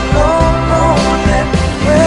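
Background pop song: a sung melody line holding and bending notes over a steady band accompaniment.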